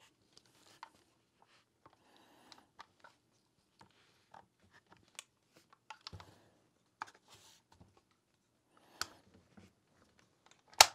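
Scattered small metal clicks and scrapes of IWI Uzi Pro pistol parts being handled and fitted together as the upper receiver is slid back on, with one sharp metallic click near the end.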